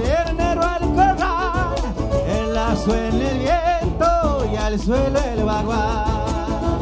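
Live Argentine folk band playing, a violin melody with wide vibrato over strummed guitar and drums keeping a steady beat.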